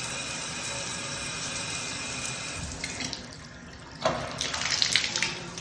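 Running water from a bathtub/shower hissing steadily, with the shower diverter letting a slight amount of water through; the flow stops a little over halfway in. About four seconds in there is a sharp knock, followed by a run of clicks and clatter.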